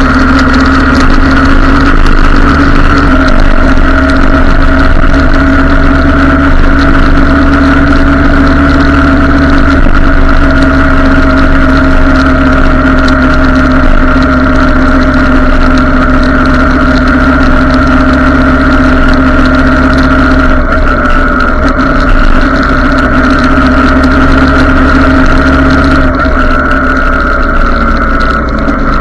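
Motorcycle engine running at a steady cruising speed, with heavy wind rush on the microphone. The engine note eases down slightly near the end.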